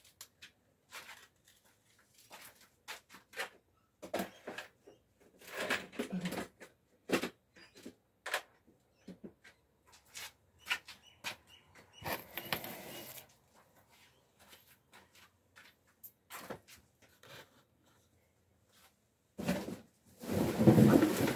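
Hand-handling noise: scattered light knocks, clicks and clatter of things being picked up and set down, with a few stretches of rustling about six and thirteen seconds in. Near the end comes a louder, close rustle and bump right by the microphone.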